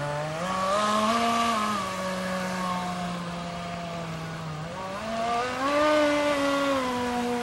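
Electric jet drive of a small RC jet boat whining as it runs on a 2S battery. Its pitch rises with throttle about half a second in and eases back, then climbs again to a higher peak about five seconds in before settling slightly lower.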